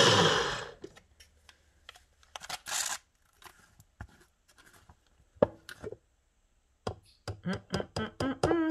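A personal blender's motor winds down, its pitch falling, in the first second. Then come scattered plastic clicks and knocks as the blade base is twisted off the cup, with a brief wavering squeak near the end.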